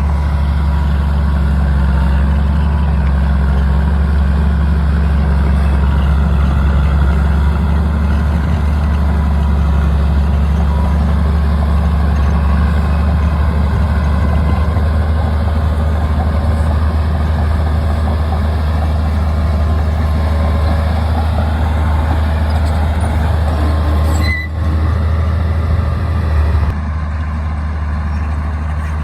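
Heavy bulldozer diesel engine running steadily with a loud, deep drone. It dips briefly about 24 seconds in and eases slightly quieter near the end.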